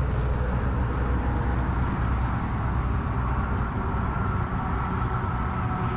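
Riding noise from an early-1970s Peugeot UJ-10 ten-speed bicycle on the move: a steady rush of wind and tyre noise with a deep rumble that eases after about two seconds, and a few faint light ticks.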